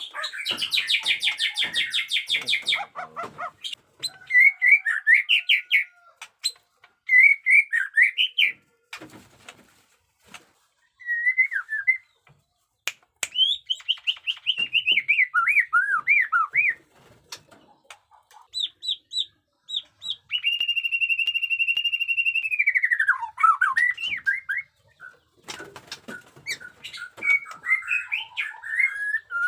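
White-rumped shama singing in varied phrases with short pauses between them. It opens with a fast buzzy rattle, goes on through runs of quick whistled notes, and about twenty seconds in holds one long steady whistle that slides down at its end.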